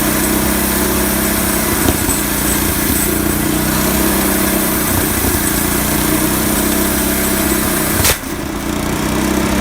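Two-stroke chainsaw engine running steadily at a constant pitch, with a short break about eight seconds in.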